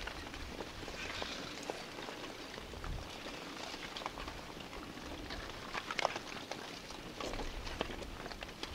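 Irregular clattering and clicking of lava blocks tumbling down the face of a growing lava dome during a partial dome collapse, with the sharpest knock about six seconds in.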